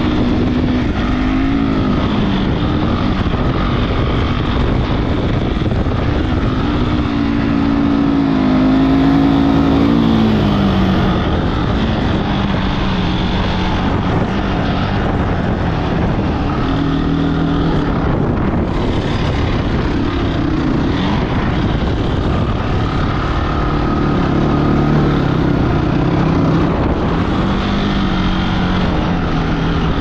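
Honda ATV engine running under a rider on sand dunes, its pitch rising and falling with the throttle, with one clear climb and drop about a third of the way through. A steady rush of wind on the microphone runs underneath.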